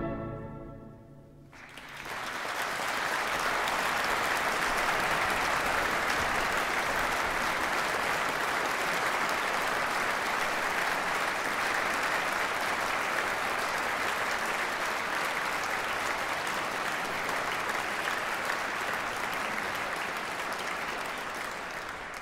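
The last chord of a symphonic wind band dies away in the hall's reverberation. About two seconds in, a concert audience breaks into steady applause that carries on and fades a little near the end.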